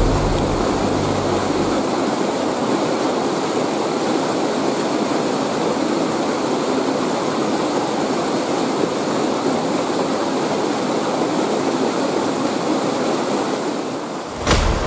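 Steady rush of a waterfall: a dense, even roar of falling water, broken by a sudden change near the end.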